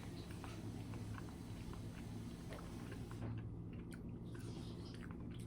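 Close-miked chewing of pizza: many small, scattered mouth clicks and smacks over a steady low hum.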